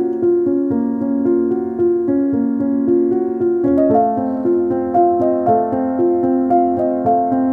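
Background music: a repeating pattern of sustained keyboard-like notes. About four seconds in it shifts to a lower, fuller chord.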